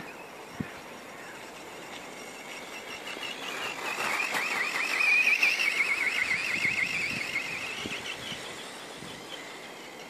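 High-pitched whine of an RC monster truck's brushless motor as the truck drives by over snow. It swells to a peak in the middle, its pitch wavering quickly up and down, then fades.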